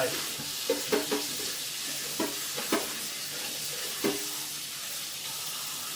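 Kitchen tap running cold water into a bowl of cut cabbage as it is rinsed, a steady hiss that stops at the very end. A few brief pitched sounds come over it.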